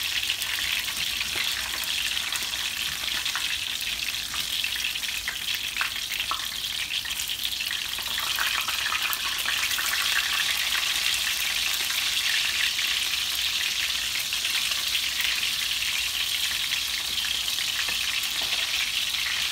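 Flour-dusted red snapper fillets frying in hot oil in a pan: a steady sizzle with fine crackling.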